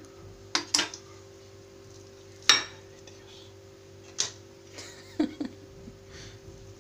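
Metal cutlery clinking and tapping against a ceramic bowl as a baked potato is split open and worked with a knife and spoon: a handful of sharp, separate clinks, the loudest about two and a half seconds in, over a steady low hum.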